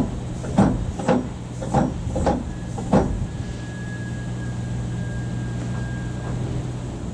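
ER2T electric train running, with a steady low hum. For the first three seconds its wheels clack over rail joints in a regular rhythm, about two knocks a second, then it goes on as a steady running rumble with a faint thin whine in the middle.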